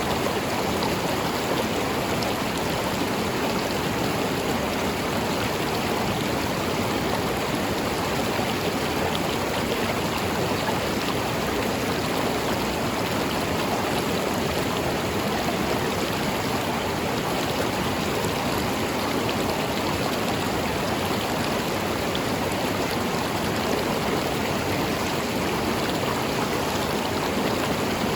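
A river flowing steadily over rocks: a constant, even rush of running water with no change in level.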